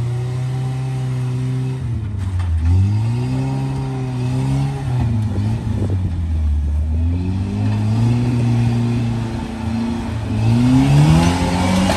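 Rock-crawler buggy engine revving in repeated surges, its pitch climbing and dropping several times under load as the buggy works up over boulders.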